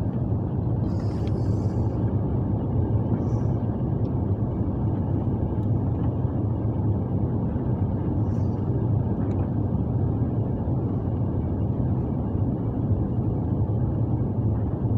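Airbus A350 cabin noise on the landing approach: a steady, low rumble of the engines and airflow, heard from inside the cabin.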